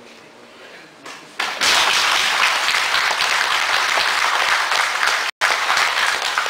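Audience applauding in a hall, breaking out suddenly about a second and a half in and continuing loud and steady. A split-second dropout in the recording cuts it briefly near the end.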